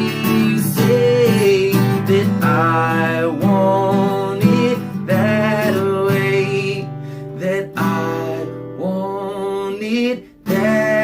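A song performed with a strummed acoustic guitar and singing over it, with a brief break about ten seconds in before the music resumes.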